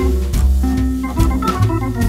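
Instrumental background music: held organ-like chords that change every half second or so, with drum hits.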